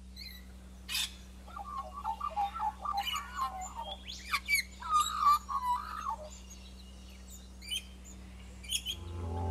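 Australian magpies carolling in warbling phrases, with sharp high chirps from other birds in between. A faint steady low hum runs underneath, and didgeridoo music begins to come in near the end.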